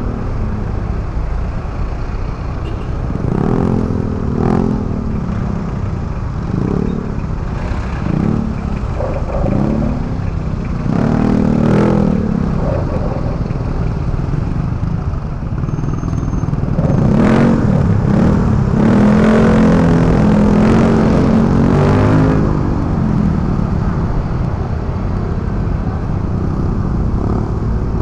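Motorcycle engine running while riding through city street traffic, its note rising and falling with speed. It is loudest and steadiest for several seconds about two-thirds of the way through.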